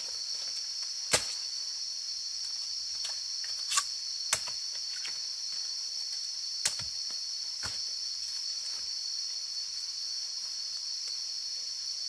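Insects shrilling in a steady, high drone, with a few sharp cracks of twigs and dry bamboo leaves underfoot, the loudest about a second in and others around four and seven seconds in.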